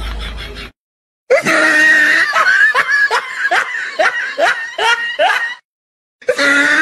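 Loud laughter: a string of rising "ha" sounds about two a second, which stops for half a second and then starts again near the end.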